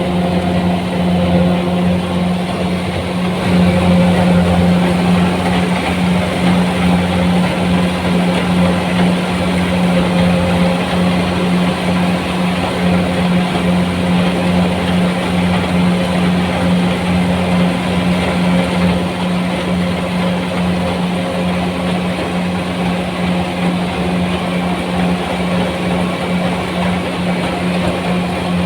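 Kubota rice combine harvester's diesel engine running steadily at working speed while harvesting, a constant drone with the clatter of its threshing machinery.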